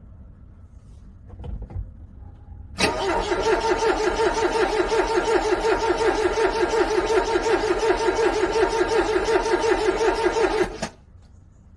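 A car's starter cranking a cold engine that will not start: a loud, even pulsing of about three to four beats a second for roughly eight seconds, cutting off suddenly without the engine catching. A short thump comes about a second before the cranking starts.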